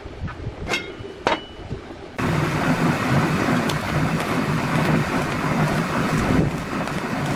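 A few light metal clicks. Then, about two seconds in, a stick (arc) welder strikes an arc and keeps it going, a steady loud crackling sizzle with a low hum underneath, as a corner of a steel square-tube frame is tack-welded.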